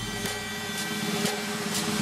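Background electronic music in a break without its beat: held synth tones over a soft noisy wash.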